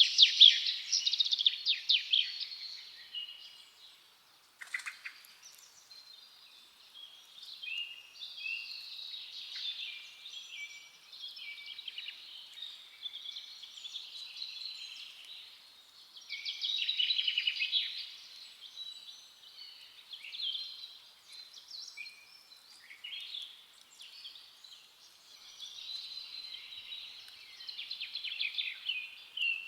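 Several forest songbirds singing and chirping in overlapping phrases, loudest in the first few seconds, with one short sharp click about four and a half seconds in.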